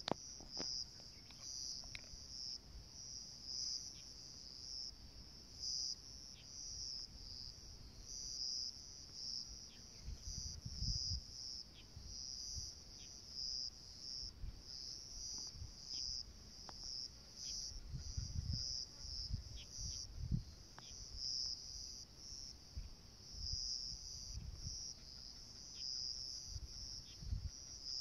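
A steady chorus of insects chirping in the grass, a high, fast-pulsing trill that never stops, with a few low rumbles now and then.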